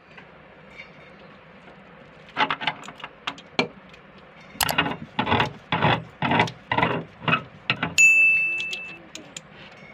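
Metal clinking and scraping of meat grinder parts against a stainless steel bowl: a few light clicks, then a run of about eight knocks and scrapes, and a sharp ringing clang about eight seconds in that fades over about a second.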